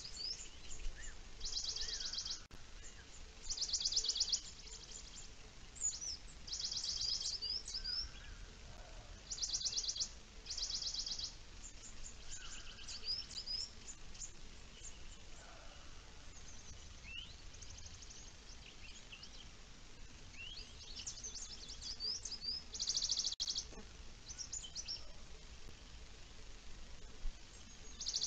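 Small wild songbirds singing in the surrounding pine forest: one repeats a short, very rapid, high trill every few seconds, between quick chirping notes from others, over a faint steady low rumble.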